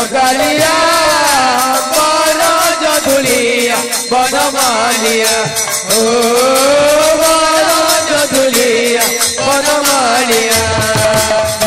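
Odia kirtan music: barrel drums (mrudanga) and hand cymbals keep a fast, even beat under a melody that swoops up and down in long arcs.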